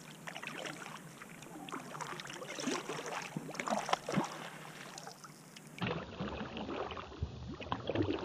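Kayak paddle dipping in calm lake water: small, irregular splashes and drips.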